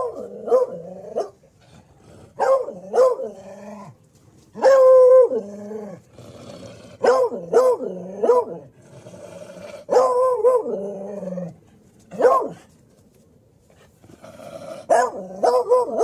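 A dog barking in clusters of two or three barks every couple of seconds, with one longer drawn-out bark about five seconds in. A quiet lull of about two seconds comes before a last quick run of barks near the end.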